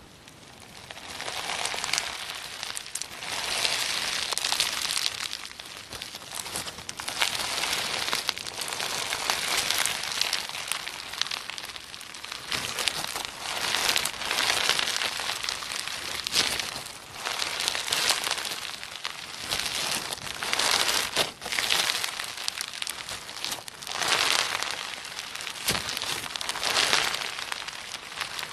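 Slime being squeezed and stretched by hand, giving crackly, popping sounds that swell in repeated surges every second or two.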